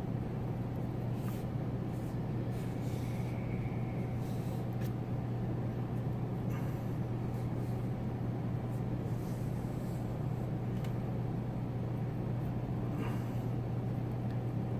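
Steady low hum, with faint scratchy rustles now and then as braided fishing line is worked by hand over a hollow-core splice.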